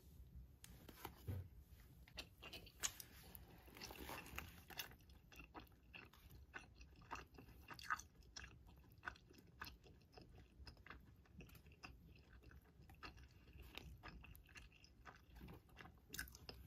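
Quiet, close-miked eating of a fried ham-and-egg pancake: a crisp bite with a crunchy rustle about four seconds in, then chewing with many small clicks.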